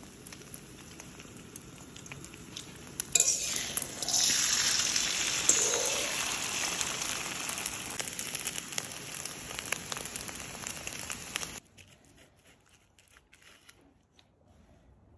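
Beaten eggs sizzling in an oiled wok, the frying growing loud about three seconds in, with the clicks and scrapes of the egg being stirred and scrambled in the pan. The sizzle cuts off suddenly near the end, leaving faint clinks of a spoon mixing the egg into rice in a bowl.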